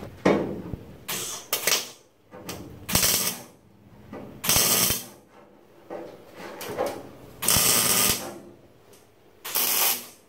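Welder laying short tacks along the seam of a sheet-steel floor pan. There are about nine bursts of arc, each under a second, with short pauses between them. The seam is built up as spot welds over and over rather than one continuous bead, the way this thin panel has to be welded.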